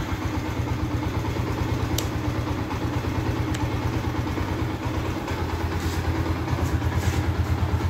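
Yamaha motorcycle engine idling steadily, with an even, quick low pulse. A couple of faint clicks come about two and three and a half seconds in.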